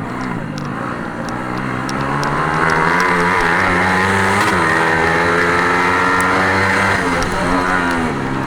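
Racing engines at high revs, their pitch rising and falling as they change speed; the sound grows louder about two and a half seconds in and eases off near the end.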